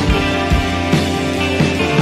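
Background music with a drum beat under held chords.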